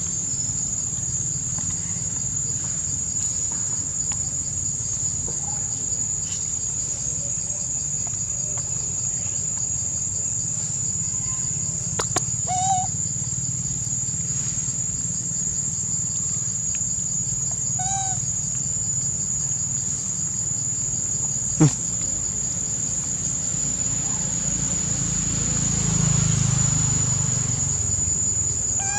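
Insects chirring in a steady, high-pitched drone. Two brief chirps come about halfway through, and one sharp click about three-quarters of the way in.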